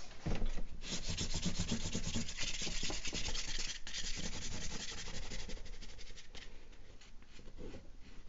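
A pastel stick scrubbed against the painting surface in quick scratchy back-and-forth strokes, loudest in the first few seconds and growing fainter after about six seconds.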